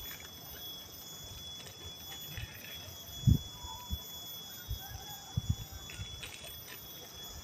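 A few soft, dull thumps as a camper shifts about and handles gear in a tent doorway. The loudest comes a little over three seconds in and a few smaller ones follow, over a steady high-pitched hum in the background.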